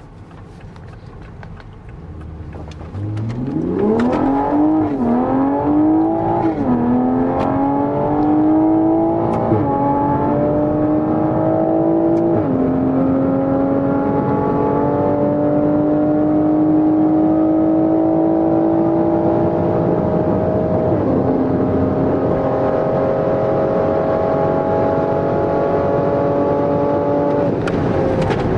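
Car engine under hard acceleration, starting about three seconds in. Its pitch climbs in each gear and drops back at each of about five upshifts, with the later pulls longer and slower, and the throttle comes off near the end.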